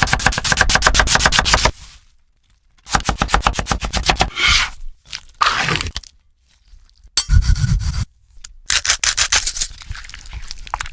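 Bursts of rapid, even strokes in food preparation, about a dozen a second, each burst lasting a second or two with short pauses between.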